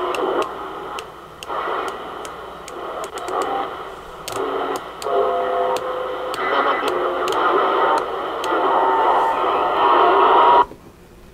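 Galaxy DX 33 HML CB radio's speaker playing band static with snatches of distant voices and brief whistling tones as the channel selector is turned through the channels, with a light click at each step. The receive audio cuts off suddenly near the end.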